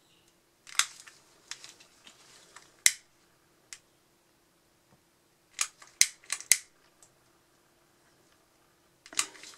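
Flexible-neck utility lighter's igniter clicking as it is fired again and again at a wet banknote that won't catch: a few sharp clicks in the first three seconds, then a quick run of four or five about six seconds in.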